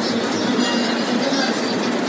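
Steady rush of a fast mountain river in white-water flow.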